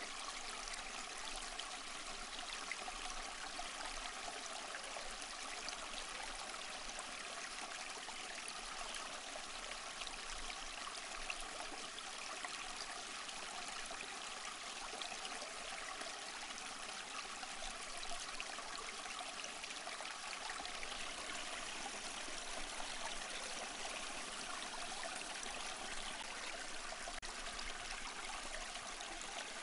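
A small stream flowing: a steady, unbroken rush of running water.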